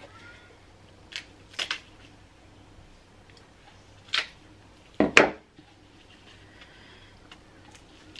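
Kitchen scissors snipping through crab shell: a few sharp snips and cracks spread out, the loudest about five seconds in.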